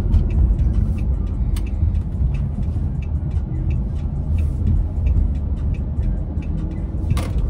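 Steady low rumble of a vehicle being driven, engine and road noise heard from inside the cab.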